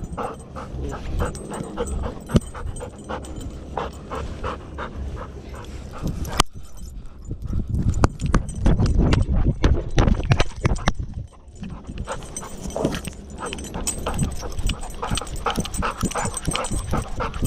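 Golden retriever panting in quick, rhythmic breaths right at a chest-harness-mounted GoPro, mixed with low thumps and rubbing as it moves. A single sharp click comes about six seconds in, and the panting and thumping are loudest a little later.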